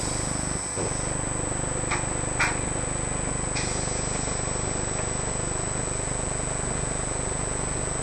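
A steady mechanical hum with a constant high-pitched whine, broken by a few short clicks about two to three and a half seconds in.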